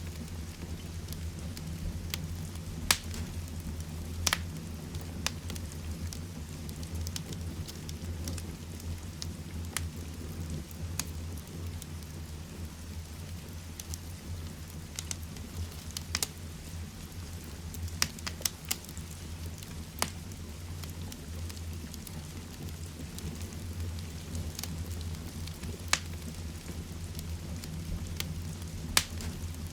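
Heavy rain falling steadily with a low, even rush, mixed with a wood fire crackling in a fireplace: a dozen or more sharp pops at irregular intervals.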